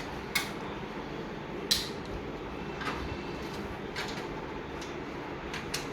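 A few short, light clicks and knocks from a PC case being handled, about five spread over several seconds, over a steady background hiss.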